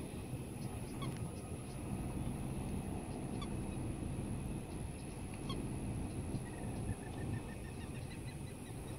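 Marsh ambience: a steady low rumble under faint scattered bird chirps, with a quick run of short bird notes near the end.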